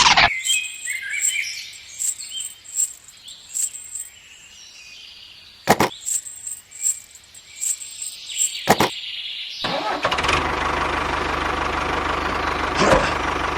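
An engine noise cuts off right at the start, leaving birds chirping with a few sharp clicks for about nine seconds; then steady engine noise comes back near the end.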